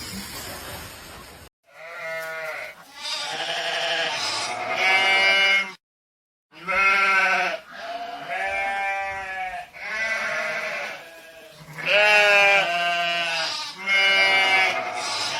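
An animal calling over and over in quavering, bleat-like cries, each about a second long, with a short break about six seconds in.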